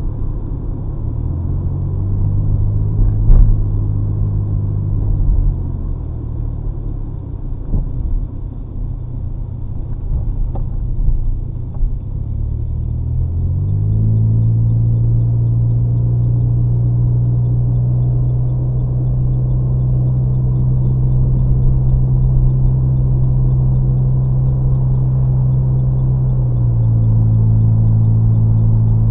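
2005 Chevrolet Cobalt's engine and custom exhaust heard from inside the cabin: a low note that rises under acceleration, eases off, then climbs again about halfway through into a steady drone at cruise, dipping slightly in pitch near the end. A single thump about three seconds in.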